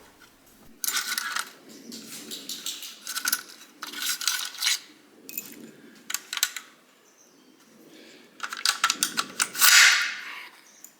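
Sharp metallic clicks and clinks in several short clusters, the loudest near the end, as the nails are taken out of a pneumatic nail gun's magazine.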